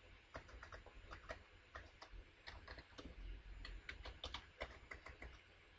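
Typing on a computer keyboard: a faint, irregular run of key taps.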